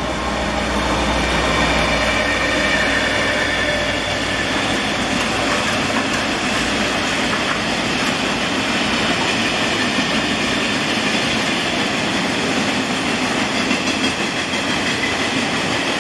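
Freight train of open gondola wagons rolling past close by: a steady clatter and rumble of steel wheels on rail, with faint squealing tones. A deep diesel engine rumble from the hauling locomotives dies away over the first few seconds as they move off.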